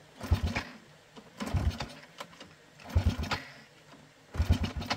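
Motorbike engine being cranked in four short bursts about a second and a half apart, turning over quickly each time without starting.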